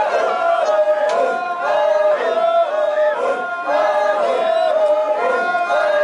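A group of voices chanting together in unison, short sung phrases repeating over and over.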